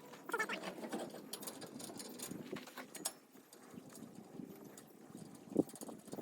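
Scattered light clicks, clinks and knocks of small parts and hardware being handled during assembly, with a sharper knock near the end.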